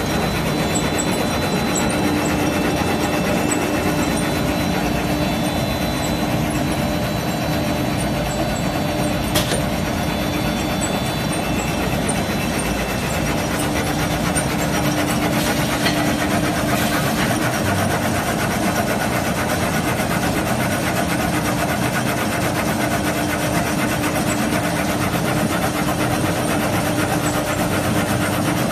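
Clutch facing weaving machine running: steady, dense machine noise with a constant hum, and one sharp click about nine seconds in.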